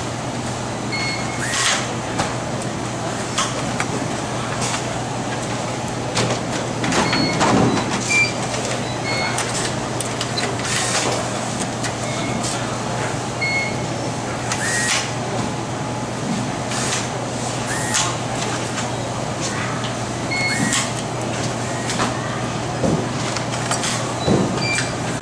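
Assembly-line ambience of a steady electrical hum under short whirs of a suspended electric screwdriver driving screws into a motherboard, with short high beeps every few seconds.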